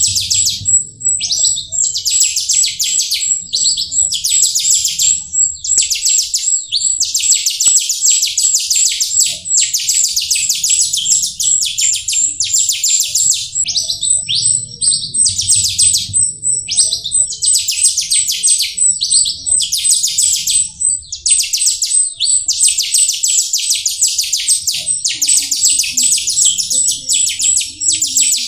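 Asian glossy starling (jalak rio) singing: a long, dense run of fast chattering and twittering notes broken only by brief pauses, with a thin, steady high note running underneath.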